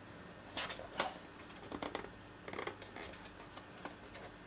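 Fingers scratching and picking at the sealed end flap of a cardboard box, trying to prise it open: irregular faint scrapes and small clicks.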